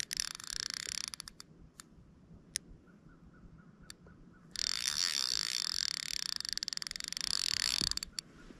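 Fishing reel running in two stretches of rapid, high-pitched ticking buzz while a big carp is being fought on the line, the first stretch about a second long and the second about three and a half seconds, with a few single ticks between them.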